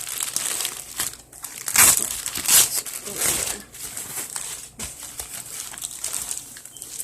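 Packaging crinkling and rustling as a handbag is handled and unwrapped, in irregular bursts, loudest about two seconds in.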